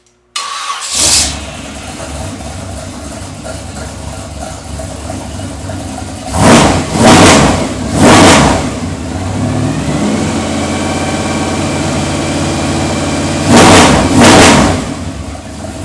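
Test engine breathing through an AERO Exhaust Turbine AT2525 straight-through muffler, which has no built-in resonator. It starts with a short flare, idles, is revved three times in quick succession about six seconds in, then idles slightly higher, and is revved twice more near the end before dropping back to idle.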